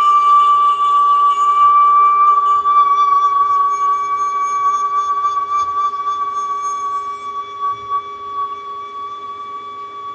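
A struck singing bowl ringing on in one long, slowly fading tone with faint higher overtones.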